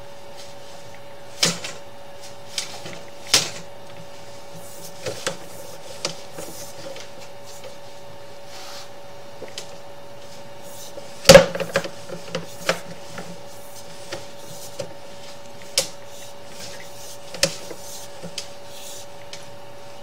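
Sewer inspection camera and its push cable being fed into a cast iron drain line: irregular clicks and knocks over a steady hum, the loudest knock about eleven seconds in.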